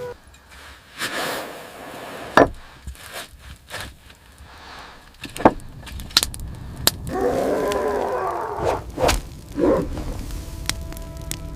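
A series of sharp, irregularly spaced knocks and cracks, with steady held tones coming in near the end.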